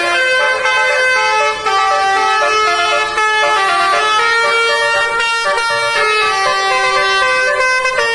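Tour bus's telolet horn playing a tune: several horn tones sound together and step from note to note, with a brief break about one and a half seconds in.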